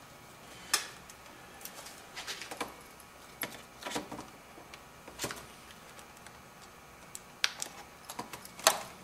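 Plastic housing parts of a Toshiba laptop clicking and knocking as they are pressed and fitted back together by hand, in irregular clicks with a few sharper snaps, the loudest about a second in and near the end.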